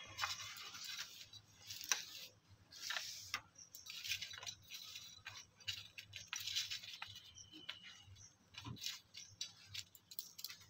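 Faint, scattered clinks, taps and rustling of salted pointed-gourd pieces being tossed and turned by hand on a stainless steel plate.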